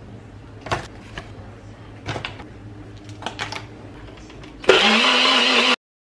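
A few light knocks and clicks as the plastic cup and scoop are handled, then a NutriBullet blender's motor starts near the end and runs loudly for about a second, blending a shake with ice, before cutting off suddenly.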